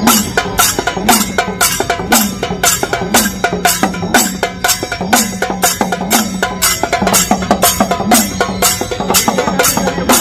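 Dhol-tasha pathak drumming: a troupe of dhols playing a fast, steady rhythm, with sharp cracking strokes about four times a second over deep drum beats about once a second.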